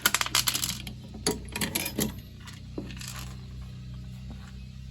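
Light clinks and rattles from handling an opened fire-alarm pull station and its snapped glass break rod: a quick run of clicks at first, then a few scattered clinks over the next few seconds.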